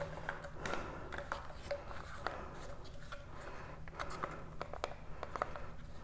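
Faint, scattered plastic clicks and rustles of a washing-machine drain pump being handled and turned over in the hands.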